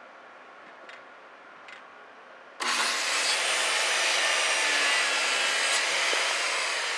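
Handheld circular saw cutting through a wooden board: it comes in suddenly about two and a half seconds in and runs steadily to the end. Before it, only a faint background hum with two light clicks.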